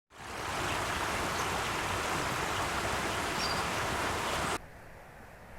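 Creek water running with a steady rushing, which cuts off abruptly about four and a half seconds in.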